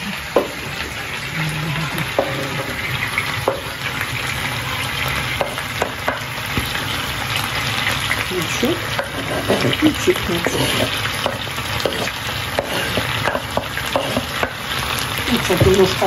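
Chicken drumsticks and potato chunks frying in a frying pan, sizzling steadily, with scattered knife clicks and scrapes as chopped onion is chopped and pushed off a wooden board into the pan; a denser cluster of knocks comes near the end.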